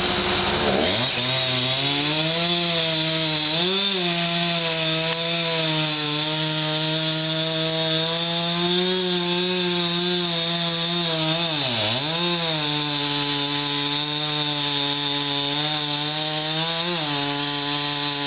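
Chainsaw revving up from idle about a second in and running at high speed while cutting wood, with a brief drop in engine pitch a little past the middle as it loads in the cut.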